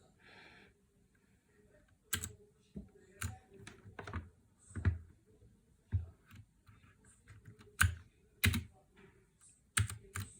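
Mechanical keyboard with clicky blue switches, sold as Cherry MX Blue on a counterfeit Ducky One 2 Mini, being typed on in slow, irregular keystrokes, each a sharp click. A short soft rustle comes just before the typing starts.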